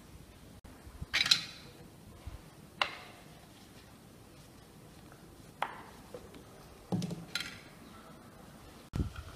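Kitchenware being handled: about half a dozen separate clinks and knocks of dishes and utensils, a second or more apart, the loudest about a second in.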